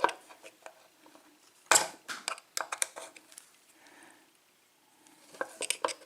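Scattered metallic clicks and clinks from handling a pin-tumbler lock and its key as the lock is locked up, with one sharp clack about two seconds in and a run of small clicks near the end.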